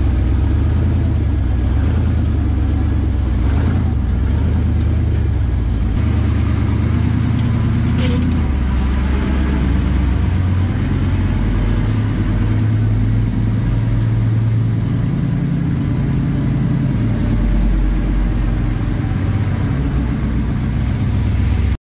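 Engine of an open tube-frame off-road buggy driving through soft sand, running loud and steady with its pitch shifting up and down as the throttle is worked.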